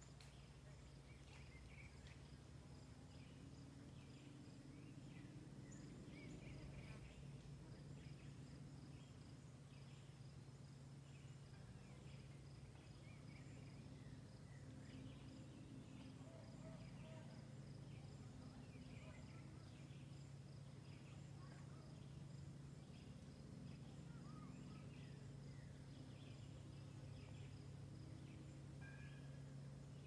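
Faint woodland ambience: many small birds giving short chirps and calls throughout, over a steady high insect trill and a low steady hum.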